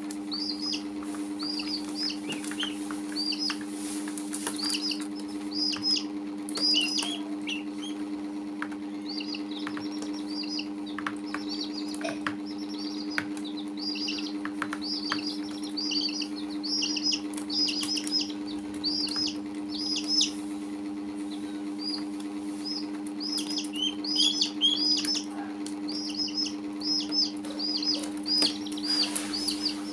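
Baby chicks cheeping over and over, several short high peeps a second, with occasional light taps. A steady low hum runs underneath.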